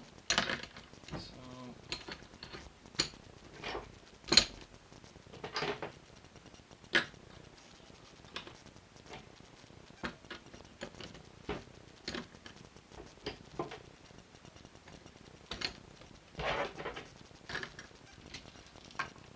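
Metal hand tools such as sockets and wrenches clinking and knocking against each other and against a small hard plastic case as they are packed into it, in irregular sharp clicks and clatters with pauses between.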